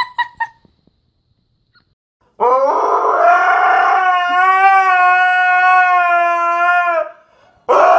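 Husky howling: one long, steady howl of about four and a half seconds that rises at its start and stops abruptly, followed near the end by the start of a second howl.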